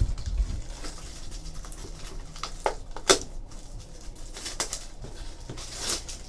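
Plastic shrink-wrap being torn and peeled off a cardboard trading-card box: irregular crinkling and rustling with a few sharp crackles, the loudest about three seconds in.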